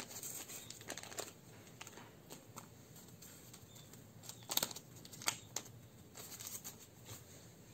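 Soft rustling and crinkling of a plastic-gloved hand and a yeast sachet as dry yeast is shaken onto flour and rubbed into it in a stainless steel bowl, with two sharper crackles about halfway through.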